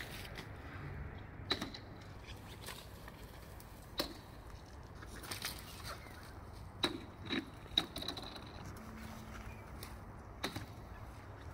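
A magnet-fishing magnet on a rope landing on and dragging over thin lake ice: scattered sharp clicks and knocks. A quick run of three comes about seven to eight seconds in, followed by a brief high ringing.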